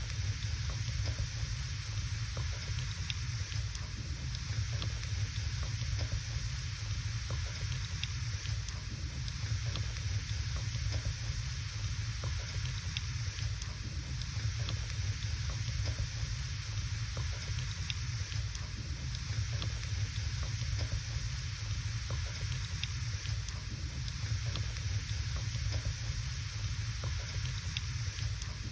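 Wood fire burning in a fireplace: a steady hiss over a low rumble, with frequent small crackles and pops from the burning logs.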